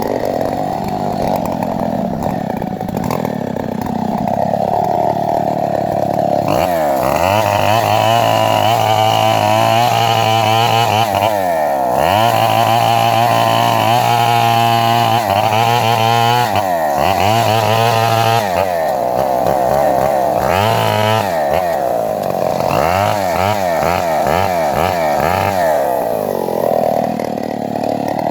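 Two-stroke chainsaw running at a low speed, then revved up about six seconds in and cutting into coconut palm wood, its engine pitch dipping and recovering again and again under load. Toward the end it runs more evenly at part throttle.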